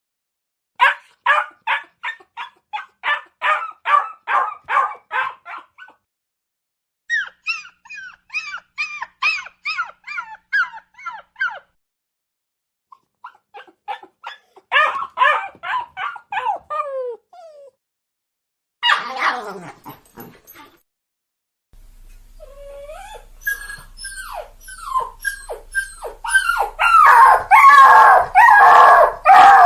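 Puppy whimpering and whining: several runs of rapid, short, high cries separated by silent pauses, then a louder stretch of long, sliding crying whines that builds toward the end.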